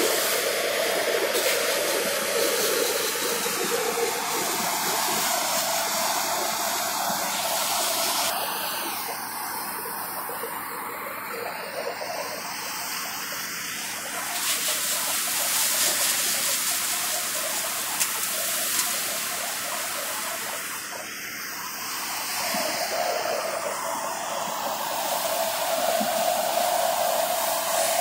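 Paddy threshing machine running under load as straw is fed into it: a steady whirring noise with a steady hum, a little quieter for a few seconds in the middle.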